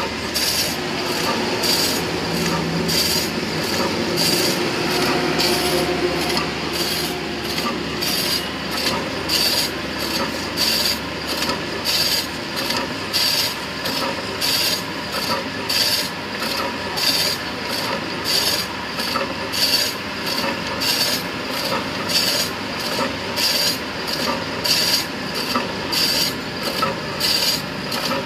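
Automatic frozen-meat slicer running and cutting a frozen meat block into curled slices: repeated cutting strokes, a little more than one a second, over a steady machine hum.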